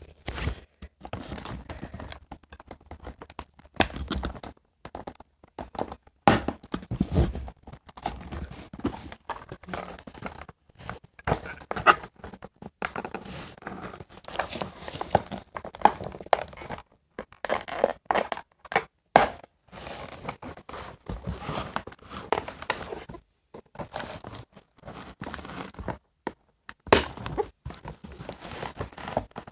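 A doll's box packaging being opened by hand: irregular tearing, crinkling and rustling, with occasional knocks as the box is handled.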